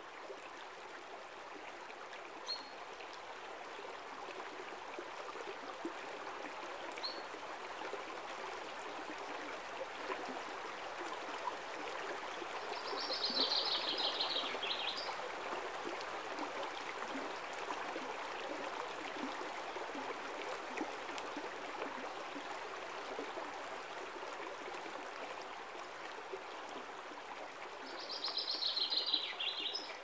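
A river flowing steadily, a little louder around the middle. A bird gives two short high chirps a few seconds in, then two bursts of fast, chattering song, one about halfway through and one near the end.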